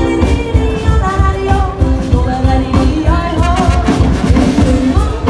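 Live Bavarian folk band music: a woman yodeling over electric guitar, keyboard and a steady beat.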